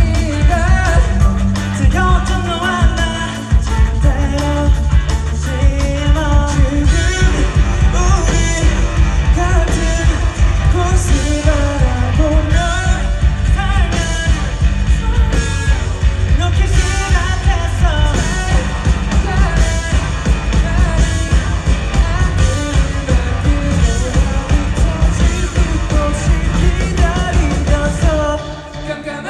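Live rock band playing a song, with a lead vocal over a steady driving beat. The music drops away briefly just before the end.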